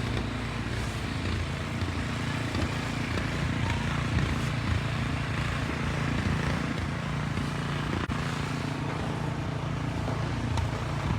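An engine running steadily, with an even low hum throughout.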